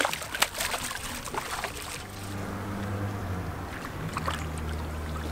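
A hooked largemouth bass thrashing and splashing at the water's surface beside the boat, the splashes dying down after about two seconds. After that a steady low hum continues.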